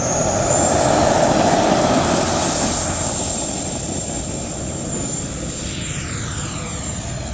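FMS 70 mm 12-blade electric ducted fan in a foam RC F-16 at takeoff throttle. Its high whine rises and settles into a steady pitch about a second in, over a loud rushing of air. Late on the sound takes on a hollow, sweeping quality as the jet climbs away.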